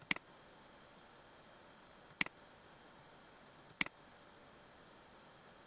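Three computer mouse clicks, about two seconds and then a second and a half apart, each a quick press-and-release double tick, over a faint steady hiss.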